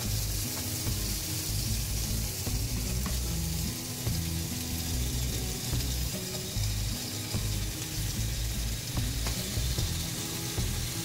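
Marinated beef skewers sizzling as they are laid on a hot gas grill grate, a steady frying hiss. Background music plays underneath.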